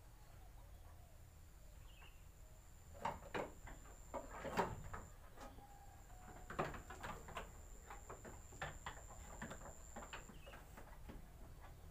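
Irregular knocks, clatters and rustles of sheep being handled in a raised wooden slatted pen: hooves and bodies bumping the wooden slats. They start about three seconds in, come thickest over the next few seconds, and thin out near the end.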